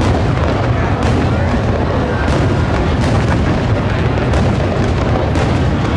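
Low-altitude aerial fireworks shells bursting in quick succession, a continuous rumble of many overlapping booms and crackles.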